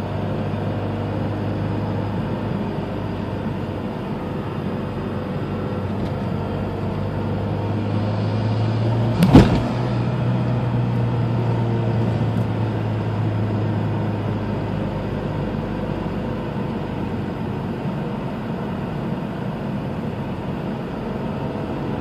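Mazdaspeed 6's turbocharged 2.3-litre four-cylinder running steadily under way, heard from inside the cabin. It builds a little about eight seconds in, and a second later comes a single sharp bang, a backfire.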